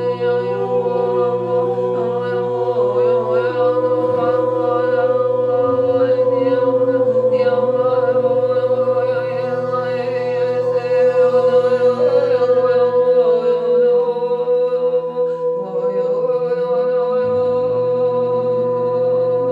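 A group of voices chanting long, wordless held tones together in a sound circle, pitches wavering and overlapping above a steady low drone that drops out about two thirds of the way through and comes back near the end.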